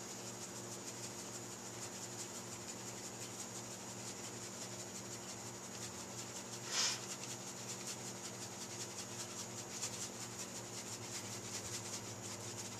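A spice shaker being shaken over fish fillets: a soft, fast scratchy rattle of the shaker, with one louder shake about seven seconds in, over a steady low hum.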